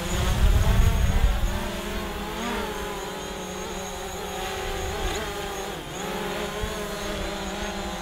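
DJI Mavic Pro quadcopter on its stock propellers, its motors and props buzzing in a whine whose pitch wavers up and down as it comes down low to land, dipping briefly about six seconds in.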